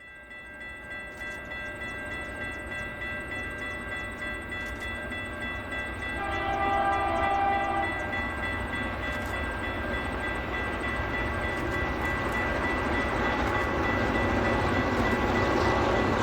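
Freight train hauled by five EMD diesel locomotives working hard up a grade, growing louder as it approaches, with a steady high whine over the engine sound. A horn blast of nearly two seconds sounds about six seconds in.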